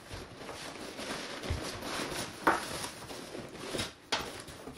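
A zipped fabric storage bag being opened and rummaged through: rustling, with a few sharp knocks, the loudest about two and a half seconds in.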